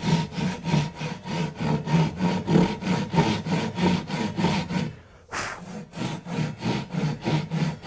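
Japanese ryoba pull saw, crosscut teeth, cutting across the grain of a timber block in short, quick rasping strokes, about three or four a second. The strokes break off for a moment about five seconds in, then resume.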